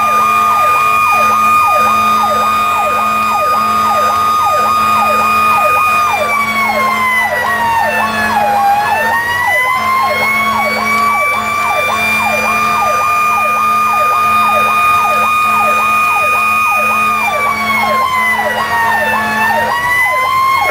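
Fire engine sirens on an emergency run: an electronic siren yelping in quick rising sweeps, a little over two a second, under a second siren that holds a steady high tone, twice sags in pitch and winds back up.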